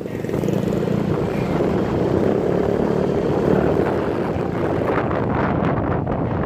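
Yamaha Mio Soul i 125 single-cylinder four-stroke scooter engine running steadily through a JAD Racing MTRT Evo 3 open power pipe, with a full, deep exhaust note.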